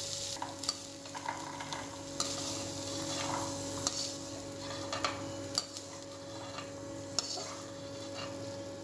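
Perforated steel ladle scraping and clicking against a kadai as cooked black chickpeas are scooped out, with a sharp clink every second or so over a steady hiss.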